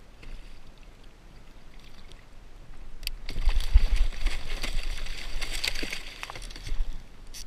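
Blacktip shark thrashing at the side of a kayak, throwing up loud splashing water for about three and a half seconds from about three seconds in, with a few low thumps near the start.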